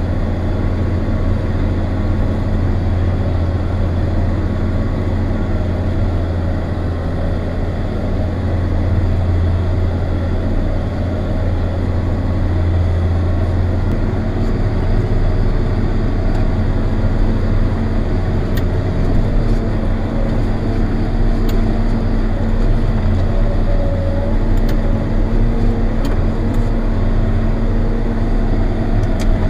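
John Deere 7800 tractor's six-cylinder turbo diesel engine running steadily with a deep drone, heard from inside the cab. Its tone shifts slightly about halfway through.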